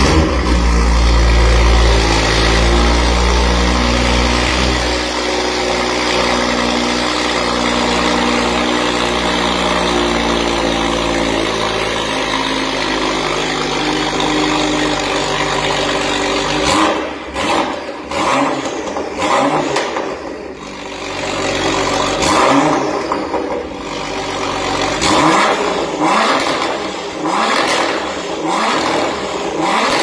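BMW M2's turbocharged straight-six, fitted with an aftermarket Armytrix downpipe, starting up with a deep rumble that eases after about five seconds into a steady idle. From about seventeen seconds in, it is revved in a string of about ten quick blips, each rising and falling back.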